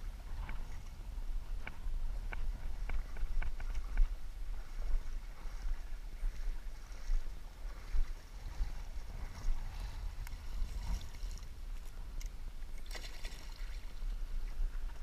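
Low rumble of wind on the microphone throughout, with a few light ticks in the first seconds. Near the end, water splashes as the arrowed carp thrashes at the surface.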